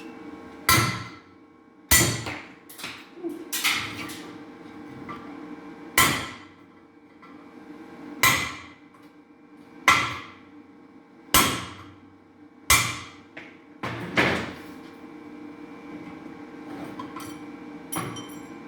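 About a dozen hammer blows on metal, irregularly spaced a second or two apart, each with a short metallic ring: valve seats being knocked out of a cylinder head. A few lighter taps come near the end.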